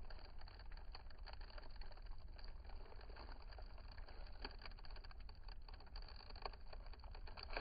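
Bubble wrap's plastic film crinkling and crackling in the hands as it is stretched, a string of small irregular clicks, with a louder crackle right at the end as the film gives way.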